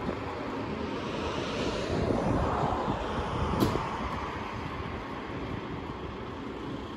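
Fire engine's diesel engine running as the appliance moves forward out of the station bay, swelling in loudness about two to three seconds in, with a short sharp click at about three and a half seconds. No siren yet.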